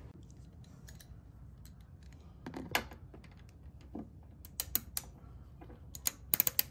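Hand ratchet wrench clicking in short, scattered runs as it turns a bolt on a scooter's body, with a quick run of about four clicks near the end.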